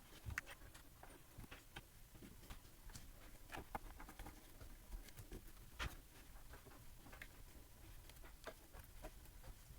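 Faint, scattered clicks and taps of small-parts hand work: screws being fitted and tightened with a small Allen wrench during reassembly. A slightly louder click comes about six seconds in.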